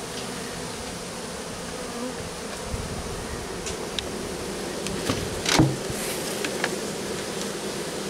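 Honey bees buzzing steadily around a bee vacuum bucket as it is lowered into a wooden hive box, with scattered small knocks and one louder thump about five and a half seconds in as the bucket is set down against the wood.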